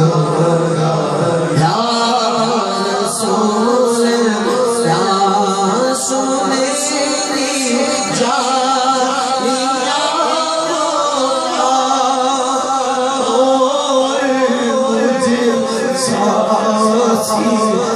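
Male voices singing an Urdu naat (devotional poem in praise of the Prophet), in long, gliding melodic lines.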